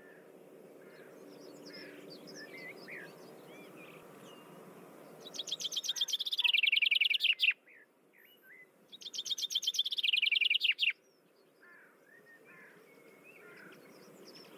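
Songbirds chirping, with one bird singing a loud, fast trill twice, each about two seconds long and dropping in pitch towards its end.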